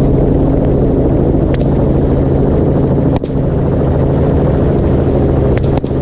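Helicopter rotor and turbine noise, a loud steady drone with a low hum, broken by a few short sharp cracks.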